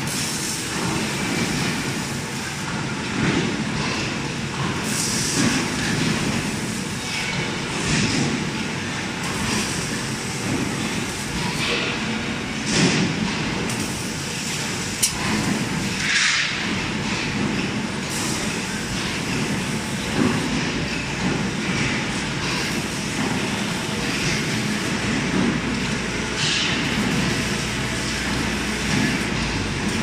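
Automated cable tray welding line running: a steady machinery din with short hisses every few seconds and an occasional sharp click.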